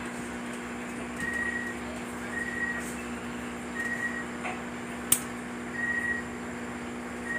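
A metal tripod light stand being handled and fastened: one sharp click about five seconds in, with a couple of fainter knocks, over a steady low hum and a short high squeak that recurs every second or two.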